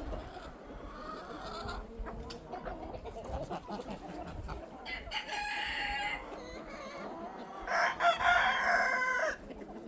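Chickens clucking, with a rooster crowing twice, about five seconds in and again, louder, near the end.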